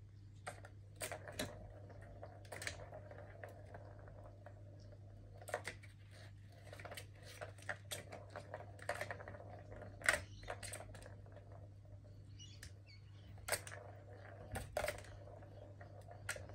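Plastic balls rolling and clattering around the tracks of a three-tier plastic cat ball tower as a kitten bats at them: irregular clicks and knocks with a rolling rumble in between, over a steady low hum.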